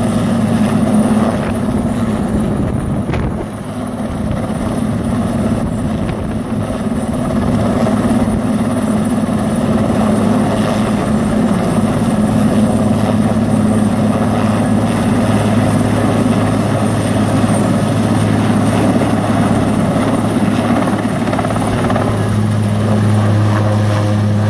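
Helicopter hovering overhead with a load on a long line, its rotor and turbine running loudly and steadily with a constant low beat.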